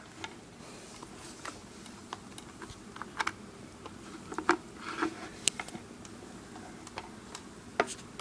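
Scattered small clicks and scrapes of a USB cable being handled and its plug pushed into the port of a metal mint-tin charger, with the loudest clicks in the middle and near the end.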